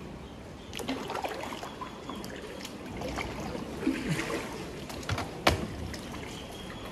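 Water gently lapping and trickling around a kayak, with scattered small drips and light knocks; the sharpest knock comes about five and a half seconds in.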